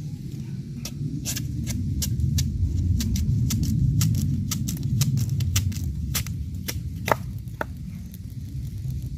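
Machete chopping and shaving strips off a raw bamboo shoot in quick, sharp strokes, about three a second, with one harder chop about seven seconds in, over a steady low rumble.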